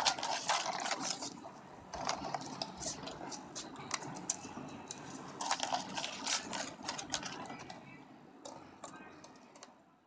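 Yellow Labrador retriever eating dry kibble from a bowl: a quick, irregular run of crisp crunches and clicks as it chews and picks up the pellets, fading out near the end.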